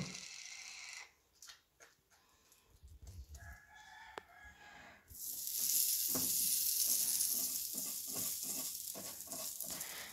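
Margarine sizzling as it is brushed onto the hot plates of an electric hotdog waffle maker with a silicone brush. A steady sizzle starts about halfway through and holds until near the end.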